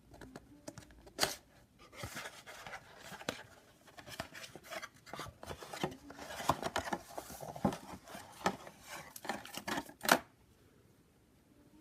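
Hands unpacking a headphone carrying bag from its box: continuous rustling and scraping of the packaging, broken by small clicks, with a sharp knock about a second in and a louder one near the end, after which the handling stops.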